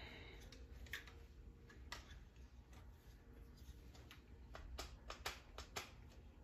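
Faint, scattered clicks and taps of a rifle being handled and taken apart, over a quiet room hum.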